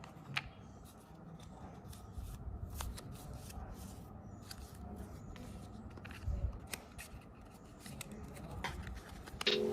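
Hands handling a phone box and its packaging: scattered small clicks and faint rustles, with a dull thump about six seconds in.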